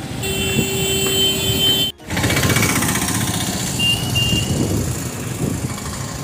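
Busy street traffic heard from a moving bicycle: engines and road noise, with a held steady tone for the first two seconds that cuts off abruptly, and two short high beeps about four seconds in.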